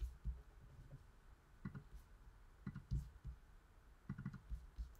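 Faint clicks of a computer keyboard and mouse, in short clusters every second or so.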